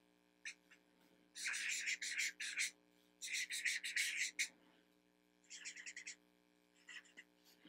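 Marker pen squeaking and scratching across paper in quick back-and-forth strokes, in four bursts of about a second each.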